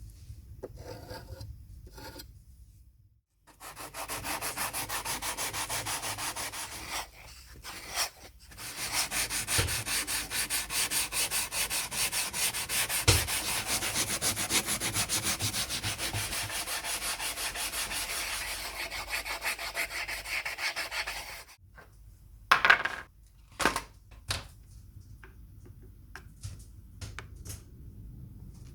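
Sanding by hand with quick back-and-forth strokes, about four or five a second, with a short pause about eight seconds in. It stops a little after twenty seconds, and a few scattered knocks and taps of handling follow.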